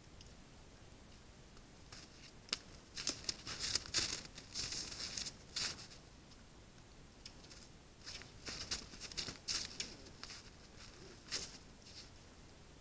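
Moose moving and feeding at a salt lick in crusted snow: irregular crisp crunching and crackling in two clusters, over a faint steady high-pitched whine.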